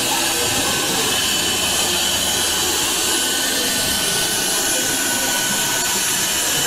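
Suction pump of a vacuum-pickup candy prize machine running, a steady rush of air as the suction cup holds a bag of jelly candy.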